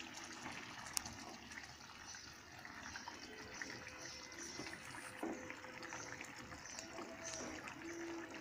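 Thick rohu fish-head and moong dal curry simmering in a pan, faintly bubbling and popping while a wooden spatula stirs through it, with one sharp click about a second in.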